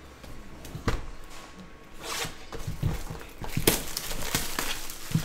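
A sealed cardboard trading-card box being picked up and its wrapper torn open: scattered knocks and taps, with a rustle of plastic about two seconds in.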